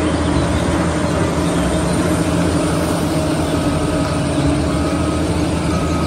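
A motor grader's diesel engine running hard as its front plow blade cuts through deep snow, over a steady rushing noise of snow being thrown aside.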